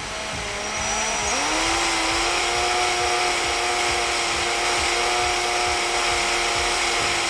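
Power drill running as a twist bit drills out a damaged screw head in a motorcycle's front brake master cylinder reservoir cap. The motor's whine rises about a second in, then holds steady.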